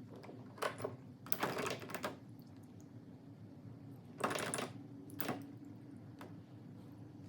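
Small hard parts being handled on a workbench: a few sharp clicks and two short clattering rattles, a couple of seconds apart, over a steady low hum.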